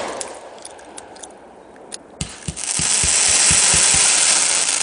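Fireworks finale: about two seconds in, a quick string of firework bangs starts, giving way to a continuous loud crackling hiss.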